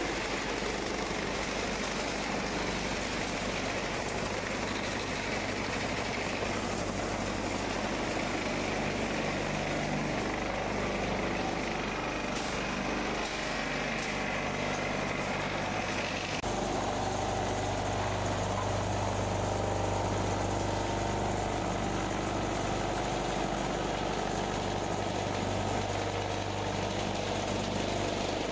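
Steady drone of motor-driven machinery with a low hum. About sixteen seconds in the sound shifts abruptly to a stronger, lower hum.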